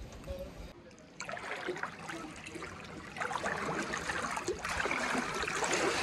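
Water flowing and splashing in a steady rush, louder from about three seconds in.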